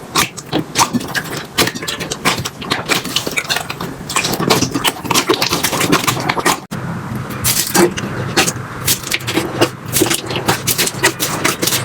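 Slime being squeezed, poked and stretched by hand, giving a dense run of wet crackles, pops and clicks. The sound breaks off for an instant about two-thirds of the way through, then carries on in the same way.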